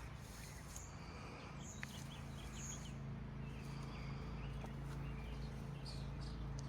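Faint, scattered bird chirps over a steady low hum that grows a little stronger about two seconds in.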